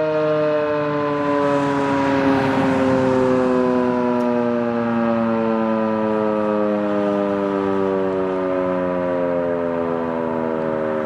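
Federal Signal 2001-SRN rotating dual-tone electromechanical siren winding down at the end of its full-alert cycle, its chord sliding slowly and steadily lower in pitch.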